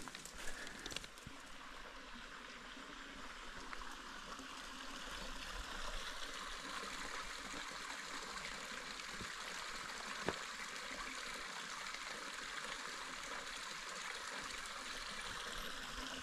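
Small creek trickling and running steadily over rocks, growing a little louder about five seconds in. A single sharp click comes about ten seconds in.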